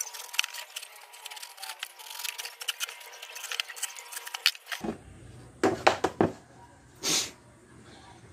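A knife cutting and scraping the rubber of an old motorcycle tire: a long run of fast small clicks and crackles, then after an abrupt change a few short, sharp scrapes.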